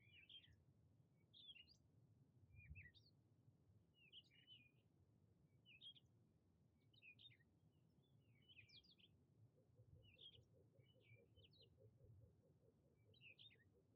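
Faint birdsong: a small bird repeating short, high chirping phrases every second or so.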